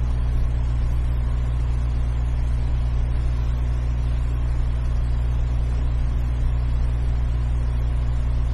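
Steady low electrical hum with an even hiss on a telephone conference-call line, unchanging throughout.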